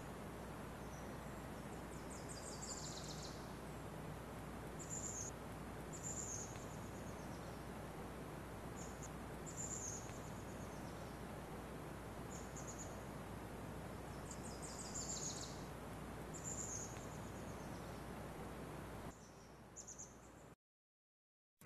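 Birds calling on a hillside: short, high chirps that fall in pitch, every second or two, with a couple of quick runs of notes, over a faint steady hiss. The sound drops away and cuts out shortly before the end.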